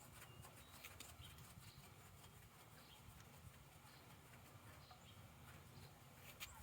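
Near silence: a faint low hum with a few scattered soft clicks, the most distinct one just before the end.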